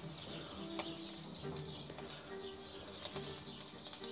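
Iberico pork chop sizzling on a very hot grill grate over glowing charcoal: a steady hiss with scattered crackles and pops. A pigeon coos behind it in short, repeated phrases.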